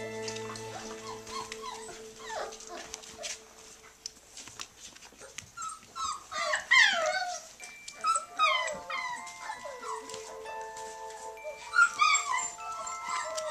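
Five-week-old Bergamasco puppies whining and yipping in short high cries, loudest about halfway through and again near the end, over background music with long held notes.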